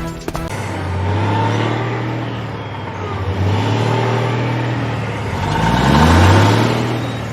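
Car engine running and revving, with rising pitch sweeps, growing to its loudest about six seconds in and then fading away.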